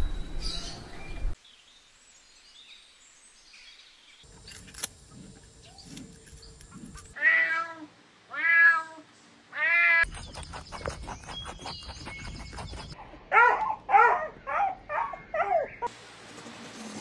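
Domestic cat meowing: three drawn-out meows, then a few seconds later a quicker run of about six shorter meows. Soft clicks and rustling fill the gaps.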